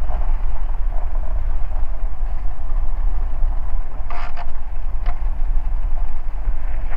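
Ikarus C42B microlight's engine running steadily, a loud low rumble, with a couple of short rattles about four and five seconds in.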